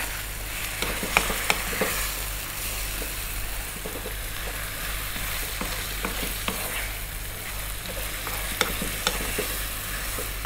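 Yogurt-and-chilli-marinated mutton frying with onions in ghee in a non-stick kadai: a steady sizzle, with a wooden spatula scraping and knocking against the pan in irregular strokes as the meat is stirred.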